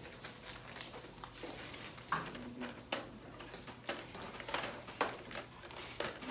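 Blue disposable exam gloves being pulled and stretched onto the hands, giving a series of short rubbery snaps and rustles.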